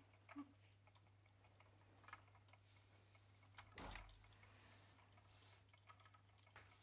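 Near silence: faint room tone with a low steady hum, scattered small clicks and one soft knock a little before four seconds in.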